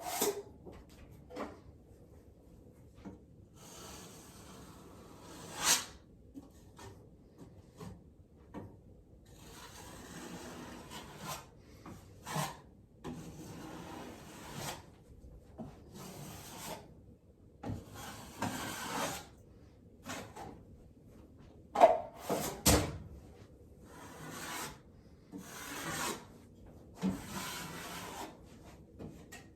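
An 8-inch drywall knife spreading and scraping joint compound over drywall for a second coat, in a series of strokes about a second long. Several sharp knocks fall between the strokes, the loudest about 22 seconds in.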